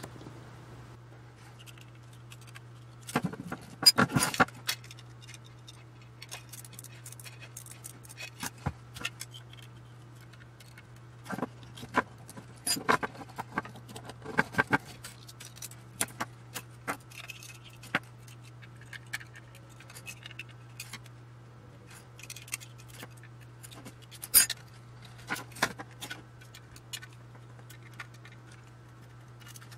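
Hands handling small metal parts and tools: irregular clicks, clinks and light scrapes of metal switch assemblies, a screwdriver and a metal chassis, with a few louder clatters about four seconds in and again near the end. A steady low hum runs underneath.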